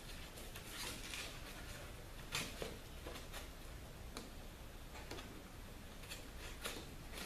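A cardboard template being pushed and worked into a rust hole in a car's sheet-metal body, giving faint scattered scrapes, rustles and light knocks.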